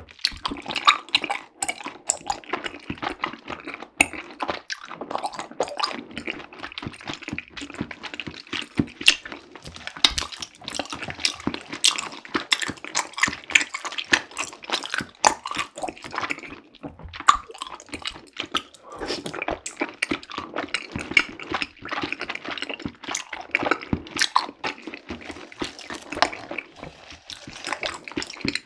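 Wet, sticky clicking and squelching of tapioca pearls in syrup being scooped with a wooden spoon from a plastic bubble-tea cup, in a dense, continuous patter with a brief lull about halfway through.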